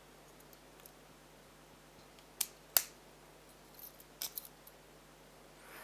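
A few sharp metallic clicks and clinks from a stainless steel padlock being handled: two louder clicks about two and a half seconds in, then a few softer ones near four seconds.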